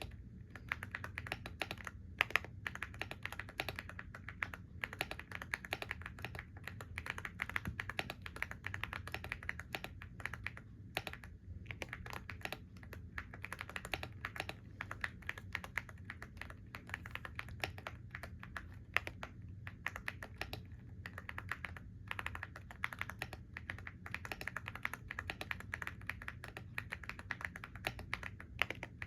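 Continuous typing on a computer keyboard: rapid, irregular key clicks with a few brief pauses.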